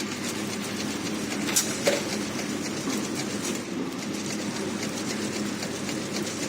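Incense stick counting and packing machine running: a steady, fast mechanical clatter of ticks, with a couple of sharper clicks about a second and a half in.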